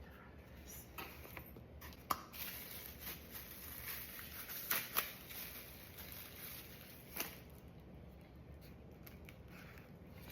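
Close-up rustling and crinkling from handling takeout food and its packaging, with a few sharp clicks: one about two seconds in, two close together near the middle, and one a couple of seconds later.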